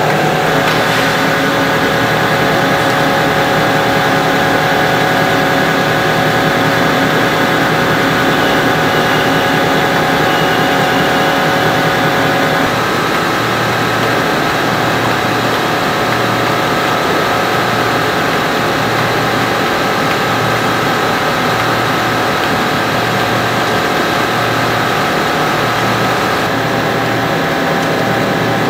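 Single-layer plastic sheet extrusion line running: a loud, steady machine drone made of many steady tones. About halfway through, the sound shifts slightly lower in level and a low pulse begins repeating about once a second.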